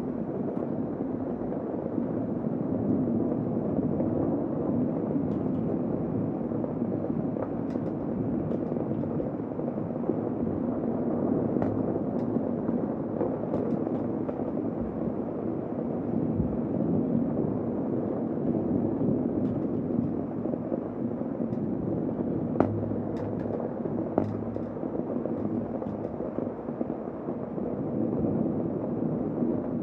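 Heavy rain falling steadily: an even, low rushing with scattered sharp ticks of drops. One tick is louder about three-quarters of the way through.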